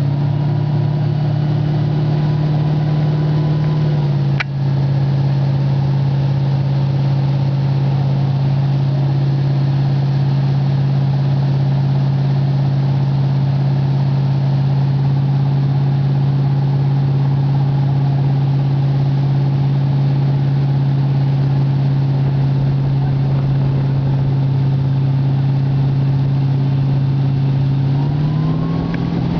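Motorboat engine running steadily at towing speed over rushing water. Its pitch drops slightly, with a brief click, about four seconds in, and rises again near the end.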